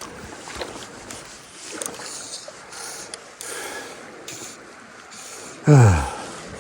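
Rushing river water and scuffing movement with a few soft knocks, then near the end a short, loud groan from a man that drops steeply in pitch.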